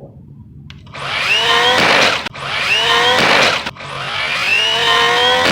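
An RC truck's brushless electric motor and drivetrain whining under full-throttle bursts on 6S power, starting about a second in. The whine rises in pitch three times, easing off briefly between bursts.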